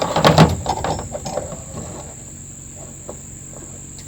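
A clamp being handled and fitted onto a chainsaw's recoil starter to hold the tensioned pulley: a burst of clattering and knocks in the first second and a half, then a few light clicks.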